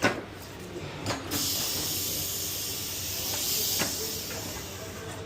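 Compressed air hissing from a pneumatic tyre changer as its turntable jaws clamp the wheel, with a few clicks. The hiss starts about a second in, runs steadily for a couple of seconds, then fades.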